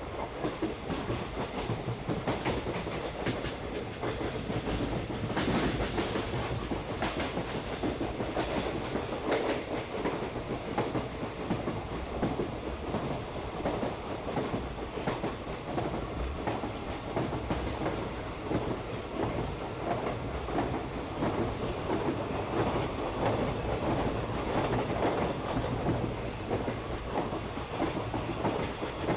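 Park toy train running steadily along its track.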